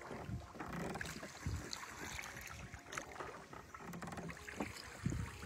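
Small boat gliding along a calm channel, with wind buffeting the microphone in low rumbling gusts that grow stronger near the end.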